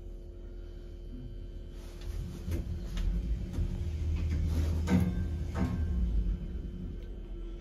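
Mid-1990s Mid Western lift, modernised by Orona, travelling between floors: a low rumble from the moving car builds about two seconds in and eases off near the end, over a steady hum. Several sharp clicks and knocks come from the car along the way.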